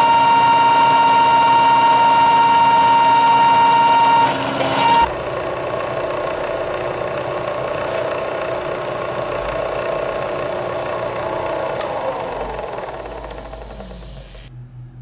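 Milling machine drilling into a steel clamp. For the first four or five seconds a steady high-pitched squeal rides over the cutting. It then changes to a rougher, lower cutting noise that fades out near the end.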